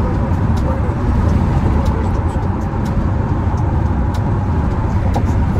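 Steady low rumble of a car on the road, heard from inside the cabin.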